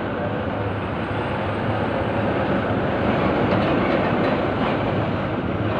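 Container tractor-trailer passing on the road: steady engine and road noise that grows a little louder about three to four seconds in.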